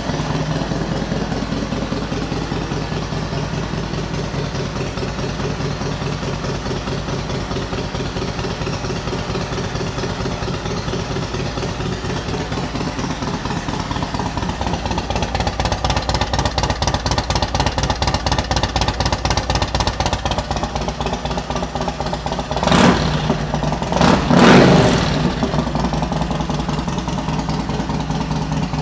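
2005 Yamaha Road Star Silverado's air-cooled V-twin idling through aftermarket twin Cobra exhaust pipes, a steady, even pulsing beat. About three-quarters of the way in, the throttle is blipped twice in quick succession, the revs rising and falling back to idle.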